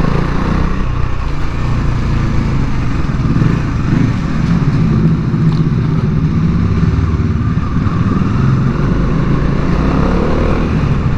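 Bajaj Dominar 400's single-cylinder engine running steadily with its stock exhaust while the motorcycle is ridden.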